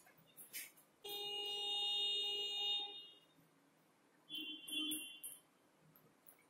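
A steady electronic tone that starts suddenly about a second in and holds for about two seconds, followed by a shorter, higher tone about four and a half seconds in.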